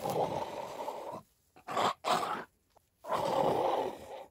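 A woman grunting and groaning with effort as she wrestles and pulls a large python, with rustling of moss and grass underfoot. The grunts come in long stretches at the start and about three seconds in, with two short bursts between.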